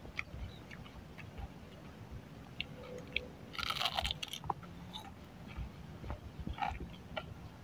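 A person biting into and chewing a deep-fried pandan-leaf crisp, with small crackles throughout and a burst of crunching about halfway through at a bite. The fried leaf is very crisp.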